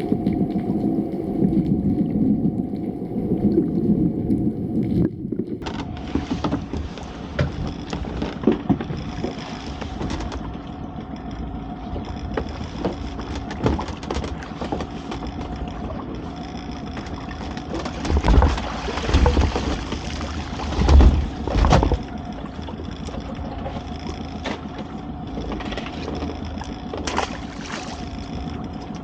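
Small open boat at sea: a steady outboard motor hum under water sloshing against the hull. The sound changes abruptly about five seconds in, and a few heavy low thumps come a little past the middle.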